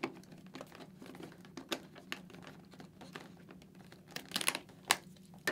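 Light plastic clicks and handling rustle from the inner sun shield mechanism of a Shoei GT-Air II motorcycle helmet as the shield is rocked down and pulled free, with a flurry of clicks a little past four seconds and a sharper click near five seconds.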